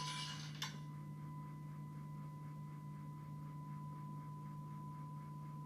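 A 1,000 Hz tuning fork ringing as one steady pure tone, held over a water-filled resonance tube. There is a light tap just under a second in, and a steady low hum underneath.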